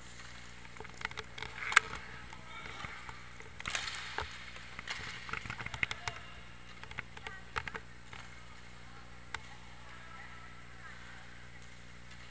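Inline hockey play: sharp clacks of sticks and puck on the hard rink floor, several in quick succession, the loudest about two seconds in, with players' distant shouts.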